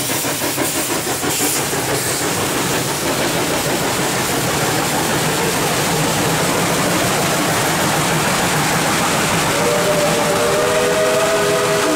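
Tweetsie Railroad's narrow-gauge steam locomotive No. 3 passing close by, its exhaust beats fading in the first few seconds under a loud steady hiss of steam as the coaches roll past. About three quarters of the way through, its steam whistle starts blowing a steady chord of several tones.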